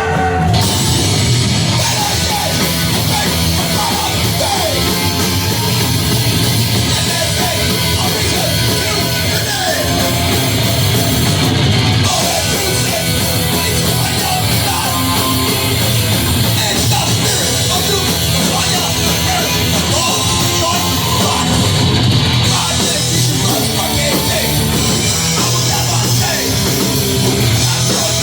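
Live hardcore punk band playing at full volume: distorted electric guitars, bass and a pounding drum kit in a dense, unbroken wall of sound.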